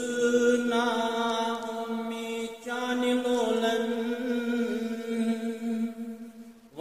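A man chanting a Kashmiri naat in a solo voice without instruments, holding long, wavering notes. One long phrase dips briefly after about two and a half seconds, then a second long phrase fades away near the end.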